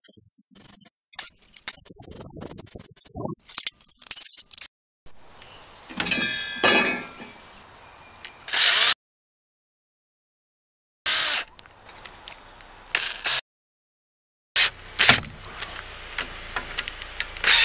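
DeWalt 18V cordless drill running in short bursts, first drilling through stainless steel sheet, then driving screws to fasten a stainless steel bracket to a wooden post. The bursts are broken by sudden cuts to silence.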